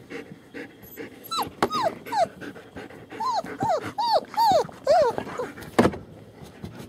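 Roughly three-week-old German Shepherd puppies whimpering: a run of about eight short, high-pitched whines, each falling in pitch. A single sharp knock comes near the end.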